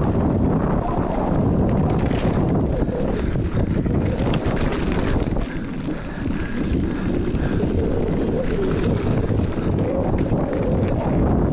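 Wind buffeting the microphone of a mountain bike rolling fast down a dirt and rock trail, over a steady rumble of tyres on loose ground with scattered knocks and rattles from the bike.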